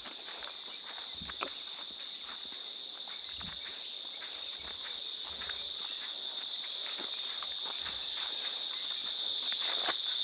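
Insects giving a steady high drone, with a second, faster pulsing trill higher up from about two and a half to five seconds in. Scattered footsteps on the ground can be heard under it.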